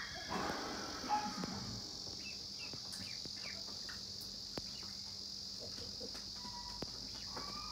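Steady high-pitched chirring of insects, cricket-like, with a few short chirps over it.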